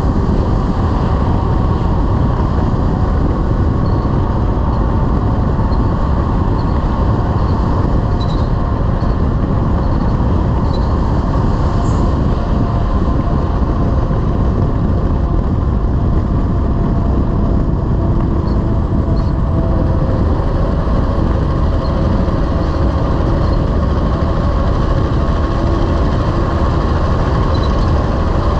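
Heavy-haul semi truck driving, its diesel engine running under a steady low drone of engine and road noise.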